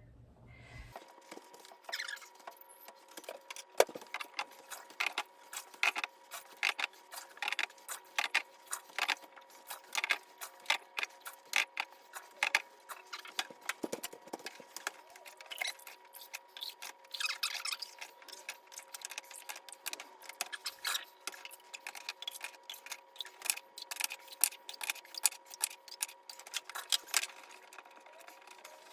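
Irregular light clicks, taps and clinks of hands working in a clogged dishwasher's bottom, removing the standing dirty water and handling the parts, over a faint steady high hum.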